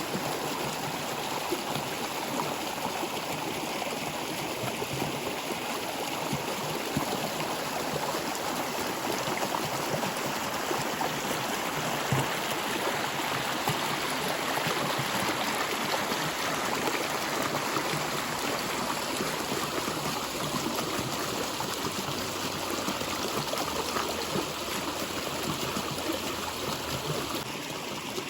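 Stream water flowing steadily, a continuous rushing and babbling with fine gurgling detail.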